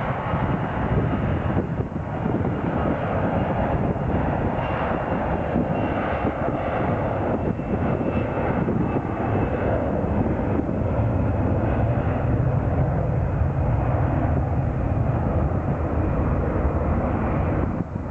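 Airliner engines running loud as a plane passes during take-off or landing: a steady rushing rumble with a faint high whine near the start, the low rumble growing stronger in the second half.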